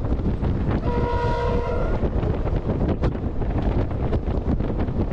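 A freight locomotive's horn sounds one blast of a little over a second, a few steady notes together. Underneath is the constant rumble of the moving train and wind buffeting the microphone, with a single sharp click a little later.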